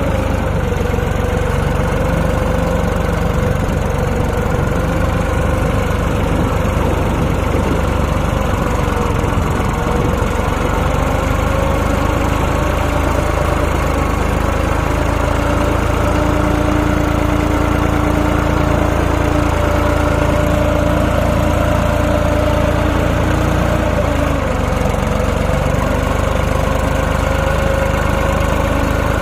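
New Holland 3600-2 tractor's diesel engine running steadily under load, with small rises and dips in engine speed, as the stuck tractor's rear wheels spin in deep mud.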